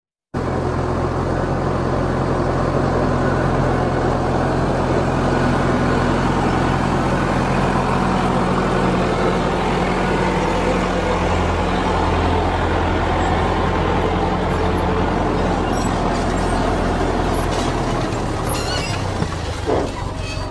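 A vehicle engine running steadily at idle, with a few clicks and a change in the engine sound near the end.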